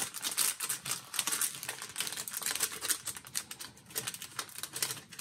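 Paper planner pages rustling and clicking as they are handled and fitted back into place: a dense, irregular run of quick ticks and rustles.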